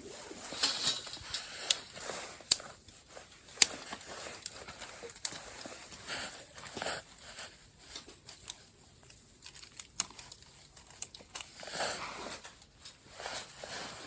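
Crinkly material being handled: irregular rustling and crinkling, with a few sharp clicks scattered through it.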